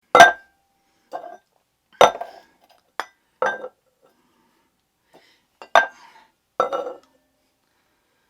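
Hard dishware clinking and knocking: a string of sharp strikes, each with a short ring. The loudest come at the very start, about two seconds in and near six seconds, with softer knocks between them.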